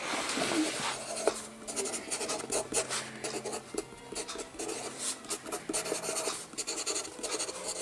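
A pencil scratching across paper in many short, quick strokes as words are handwritten.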